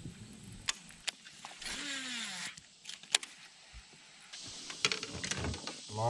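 A few sharp clicks and knocks, spread out, with a soft rustle about two seconds in: fishing rods and a baitcasting reel being handled on a bass boat's deck.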